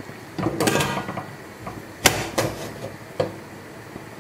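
Stainless steel pressure cooker lid being fitted and closed: a metal scraping rattle about half a second in, then a sharp clank at about two seconds and a couple of lighter knocks.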